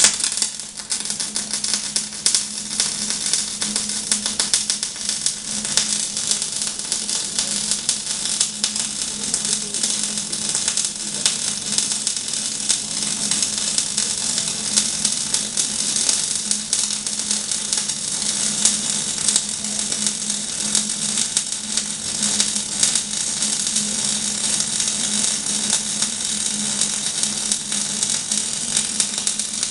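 Electric arc welding: a continuous crackling and sizzling of the arc, dense with tiny pops, over a steady low hum.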